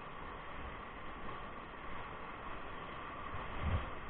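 Whitewater rapids rushing around a raft, a steady churning hiss of the river, with a short low thump near the end.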